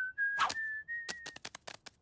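Cartoon whistling of a short tune, a few held notes stepping upward, mixed with quick swishes and taps; near the end a run of rapid ticks.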